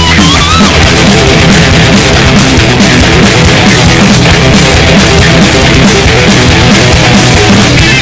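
Loud rock music with electric guitar and a steady, driving drum beat.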